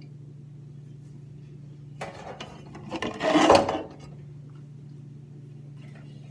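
A scraping, rubbing sound lasting about two seconds, starting about two seconds in and loudest near the middle, over a steady low hum.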